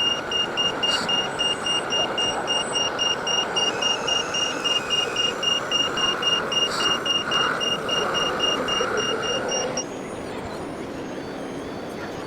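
Reversing warning beeper: a high beep repeating rapidly and evenly over a steady motor hum, cutting off suddenly near the end.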